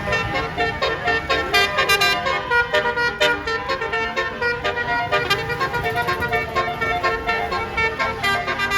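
A bus's telolet horn playing a tune of several musical horn tones in changing pitches, over a low engine rumble.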